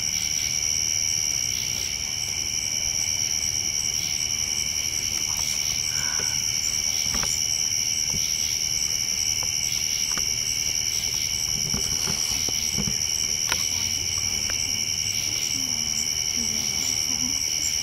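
Steady nighttime chorus of crickets and other insects, several high-pitched trills held unbroken. A few faint crackles from the campfire sound over it.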